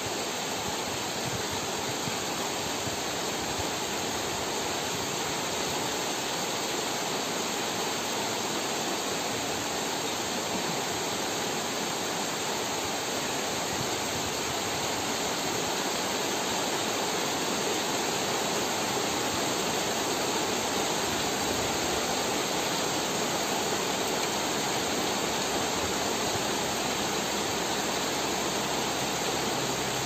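Steady heavy rain falling on banana leaves and trees, a dense even hiss that grows a little louder midway through. A low steady hum joins in near the end.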